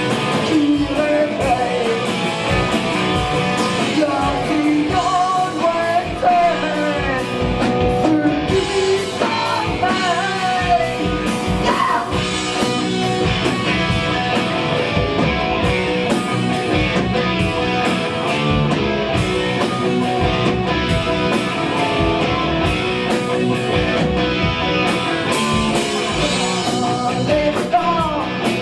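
A hard rock band playing live: distorted electric guitars, bass and drums, with a singer's voice over them.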